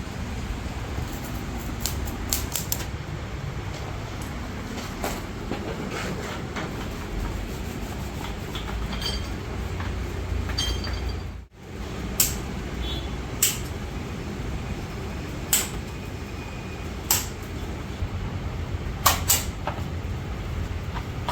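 Workshop noise: a steady low rumble with scattered sharp clicks and knocks, a few seconds apart and louder in the second half. The sound drops out briefly about halfway through.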